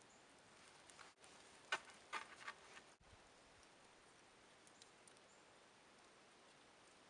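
A handful of light wooden knocks, one sharp click and then a quick little run of taps about two seconds in, as dead poles are set against each other to form a tripod. Then near silence.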